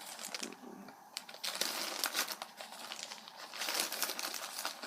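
A plastic bag of kit parts crinkling and rustling as it is handled, with irregular light clicks.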